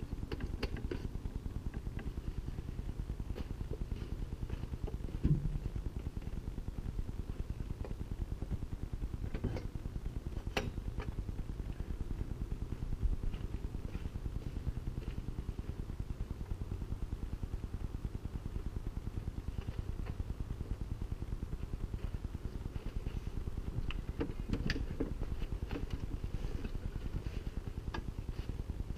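Scattered clanks and knocks of a homemade metal snowmobile dolly being handled and fitted under a snowmobile, over a steady low rumble.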